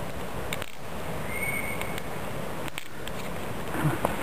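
Knife blade working into a hard, dry oak gall held in the hand: faint clicks and scrapes over a steady outdoor hiss, a little stronger near the end. A brief faint high whistle sounds about a second and a half in.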